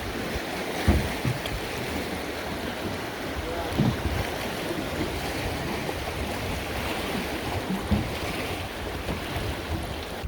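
River water rushing steadily around a drift boat, with wind on the microphone and a few brief low thumps.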